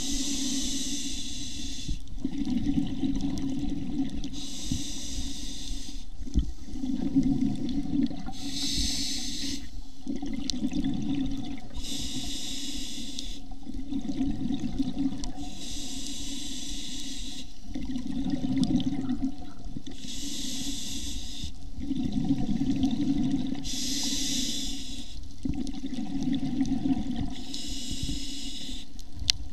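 A scuba diver breathing through a regulator underwater: a short hiss on each inhale alternating with low rumbling exhaust bubbles on each exhale, about eight slow, even breaths.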